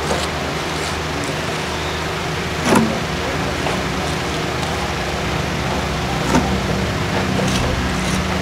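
A steady low mechanical hum with a noisy background, broken by two sharp knocks, one a little under three seconds in and one about six and a half seconds in.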